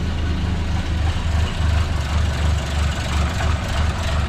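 Renault C1J four-cylinder engine idling unevenly just after starting, its low pulse wavering in strength. It is cold and short of choke, running on ignition from a newly fitted MaxxECU Mini that is still locked at a fixed 10 degrees of advance.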